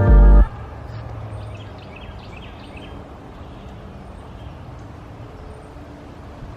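Background music cuts off about half a second in, leaving a steady low hiss of background noise with a few faint, short bird chirps.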